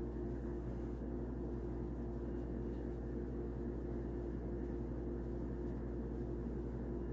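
Steady low background hum with a faint hiss and no distinct events: room noise under the recording.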